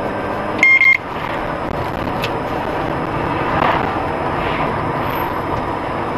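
Steady road and engine noise of a moving car, heard from inside the cabin through a dashcam microphone. A short, loud, high-pitched electronic beep cuts in just under a second in.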